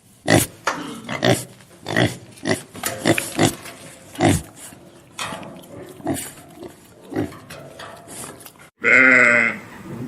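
A pig grunting, a run of short separate grunts, about one or two a second. About nine seconds in it gives way to a sustained bleat with a wavering pitch.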